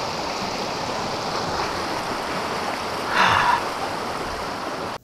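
Fast-flowing mountain creek rushing over rocks, a steady wash of water noise, briefly louder about three seconds in.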